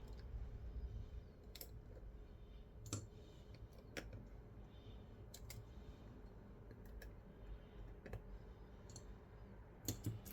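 Faint, irregular light clicks of small tools and parts being handled while a smartphone is taken apart, about a dozen in all, with a louder click near the end, over a low background hum.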